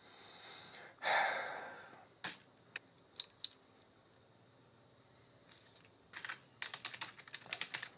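A short rushing noise swells about a second in and fades away over a second. Then come a few scattered clicks, and near the end a quick run of computer-keyboard typing.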